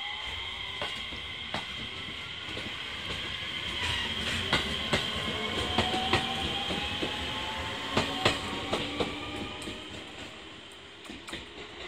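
JR Shikoku 7000-series electric train pulling away past the platform. Its motor whine rises slowly in pitch as it gathers speed, over a steady high whine, and the wheels click sharply over rail joints. The sound fades near the end as the train draws away.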